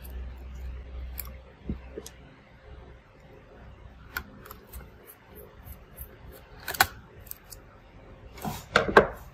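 Small metallic clicks and taps of a screwdriver working the screws out of a laptop's motherboard and the loose screws being handled, with a louder cluster of clicks and clatter near the end. A low rumble fades out in the first couple of seconds.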